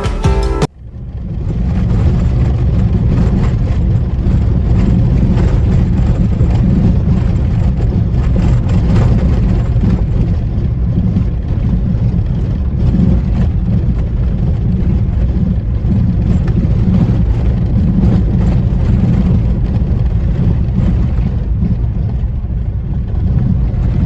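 Steady low rumble of a moving vehicle, starting right after a piece of music cuts off about a second in.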